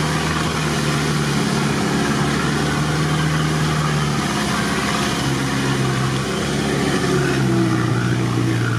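Off-road vehicle's engine running steadily at low revs, heard from inside the cab; its hum drops slightly in pitch near the end.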